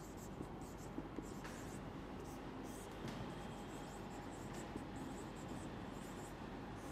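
Marker pen writing on a whiteboard: a faint run of short, irregular scratchy strokes as words are written out.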